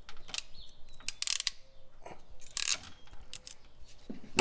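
Hand ratcheting crimping tool clicking as it crimps an insulated ring terminal onto a wire, several irregular clicks and short rasps.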